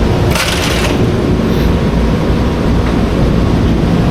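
Steady low rumble of a running vehicle, with a short hiss about half a second in.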